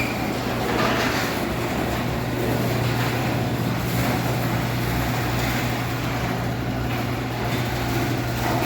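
Electric garage door opener running, its motor humming steadily as it drives the overhead door along its tracks, with a rattling, rolling noise over the hum.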